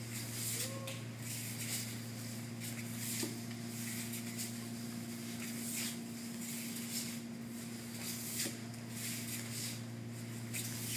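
Soft, irregular rustles and shuffles of bare feet and cotton martial-arts uniforms on a training mat, over a steady electrical hum.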